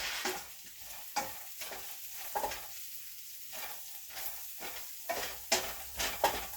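Stir fry being stirred in a pan: a run of irregular scraping strokes, one or two a second, over a light sizzle.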